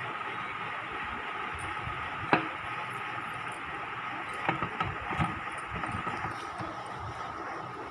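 Stainless-steel grinding jar being set onto and pressed into the motor base of a Sujata mixer grinder: one sharp clack a little over two seconds in, then a few lighter knocks about two seconds later, over a steady background hiss.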